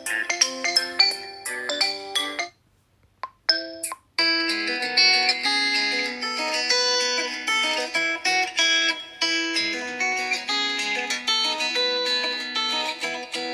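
Xiaomi Redmi 9A ringtones playing one after another. One melody of short pitched notes stops about two and a half seconds in. After a brief tone and a short silence, the next ringtone starts about four seconds in: a steady melody of plucked, guitar-like notes.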